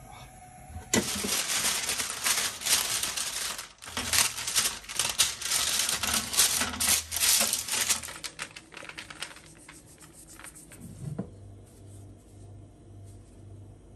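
Sheet of baking parchment crinkling and rustling as it is spread and pressed flat onto a metal oven tray, with quick light ticks of paper against the tray; it dies away a few seconds before the end.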